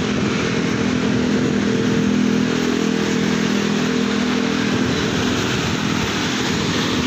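Steady rushing noise from riding a bicycle on a wet road, with the engine of a nearby motor vehicle running alongside; the engine hum is strongest early and fades after about five seconds.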